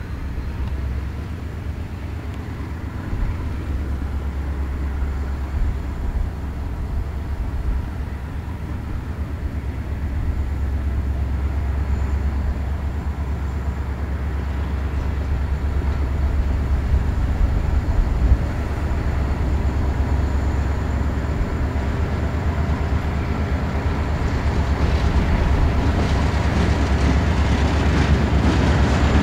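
Diesel freight locomotive hauling a grain train as it approaches: a low engine rumble that grows steadily louder, with wheel clatter on the rails starting near the end.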